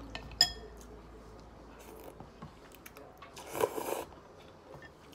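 A single clink of a utensil against a glass bowl about half a second in, then noodles slurped into the mouth for about half a second a little past three seconds in.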